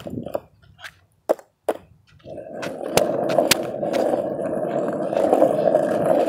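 A few sharp knocks, then about two seconds in skateboard wheels start rolling on pavement: a steady rolling noise that grows louder, with a couple of clicks from the board along the way.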